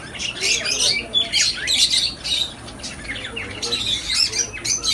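Many caged small parrots chattering and screeching at once: a dense, unbroken din of short, sharp, overlapping calls.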